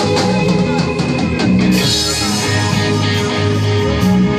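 Live rock band playing loud: electric guitars and bass over a drum kit with repeated drum and cymbal hits.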